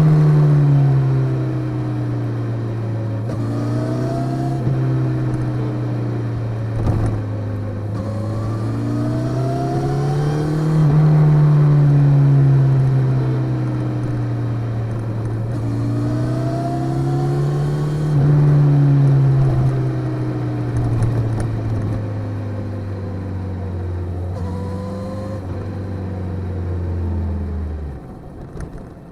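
Motorcycle engine running while riding, the revs rising and falling several times as it accelerates and eases off. The engine note stops abruptly near the end.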